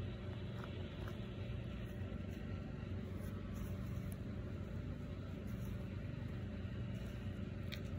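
Steady low rumble with a low, even hum and a few faint clicks.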